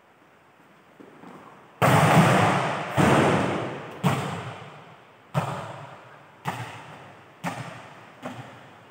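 Volleyball struck hard, then bouncing again and again on the court floor, each bounce echoing through a large hall. The loudest impact comes about two seconds in, and the bounces that follow come about a second apart, growing fainter and slightly closer together.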